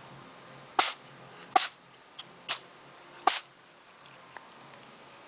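Cat sneezing four times in quick succession, short sharp sneezes a little under a second apart, the third one weaker.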